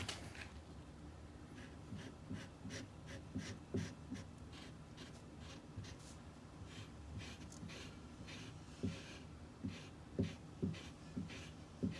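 Faint hand work at a bench: short scraping strokes and scattered soft knocks of a tool or workpiece being handled, with the knocks more frequent near the end.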